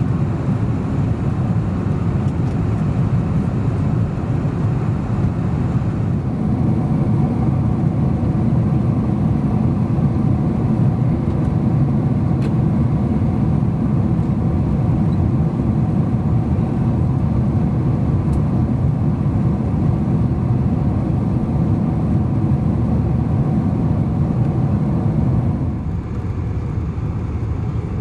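Steady low rumble of a Boeing 747-400's Rolls-Royce RB211 engines and airflow, heard inside the passenger cabin. It grows slightly louder a few seconds in and eases off a little near the end.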